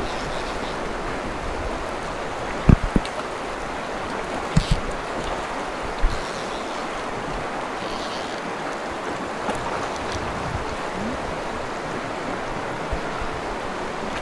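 Creek water rushing over rocks in a steady wash, with a few brief low thumps about three, four and a half and six seconds in.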